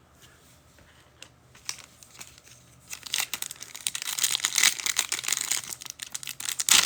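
Plastic wrapper of a football trading-card pack being torn open and crinkled: a few faint clicks, then from about three seconds in a dense run of crinkling.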